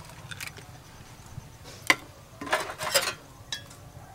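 Taps and clinks against a stainless steel mixing bowl as eggs are cracked into flour and a wire whisk goes into the bowl: one sharp tap about two seconds in, then a quick run of clinks and a last tap near the end.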